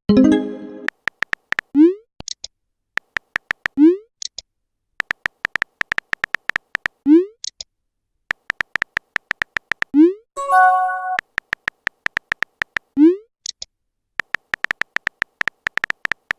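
Text-messaging sound effects: runs of rapid keyboard-tap clicks, each run ending in a short rising pop as a message is sent, about five times. Just after the middle, a brief electronic chime of a few held tones marks a received message.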